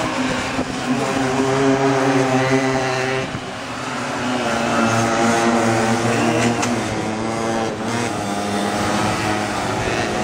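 Several minimoto pocket bikes racing, their small two-stroke engines whining at high revs, several pitches overlapping and rising and falling as the bikes accelerate and ease off.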